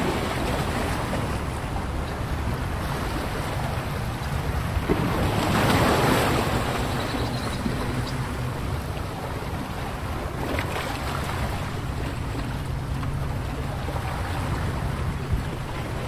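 Wind blowing on the microphone outdoors, a steady rushing noise that swells in a gust about six seconds in.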